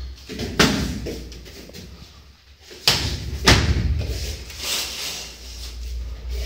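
Strikes landing during kickboxing sparring: gloved punches and kicks thudding against guards and shin guards, with a sharp hit about half a second in and two more close together around three seconds in, amid shuffling footwork on the ring floor.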